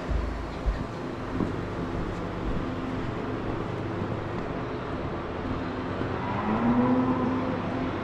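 Steady noise of dairy-barn ventilation fans, with a few knocks in the first couple of seconds. A cow lets out a short low moo that rises, about three-quarters of the way through.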